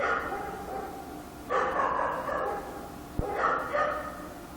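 A dog barking in short, repeated bouts: a bark at the start, a cluster of barks about a second and a half in, and a pair about three and a half seconds in, each trailing off with an echo. There is a single sharp click just after three seconds.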